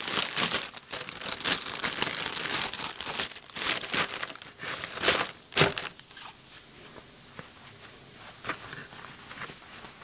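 Clear plastic bag crinkling as a fabric bonnet is pulled out of it, with a few sharper crackles about five seconds in. The crinkling stops about six seconds in, leaving only faint handling.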